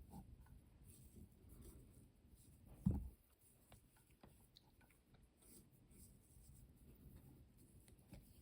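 Near silence with faint small scratches and clicks of fly-tying materials being handled as chenille is wrapped on the hook, and a single low thump about three seconds in.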